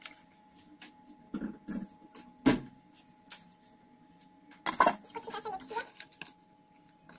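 Kitchen handling sounds as spice is shaken from a jar and utensils are worked in a bowl: scattered clicks and knocks, with a few short hissy shakes. The sharpest knock comes about two and a half seconds in, and there is a busier bit of clatter shortly before the end.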